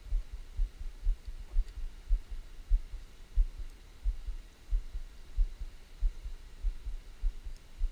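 Irregular low thumps and rumble of wind buffeting a body-worn action camera's microphone, several a second, over a faint hiss of river water.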